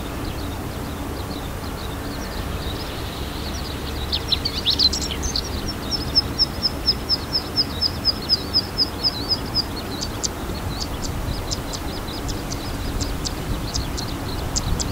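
Birdsong of a male chestnut-eared bunting on its breeding grounds, with skylarks and zitting cisticolas singing behind. A loud cluster of high notes comes about four seconds in and runs into an even string of quick high notes, about four or five a second. In the second half, sharp high ticks come about twice a second, over a low steady rumble.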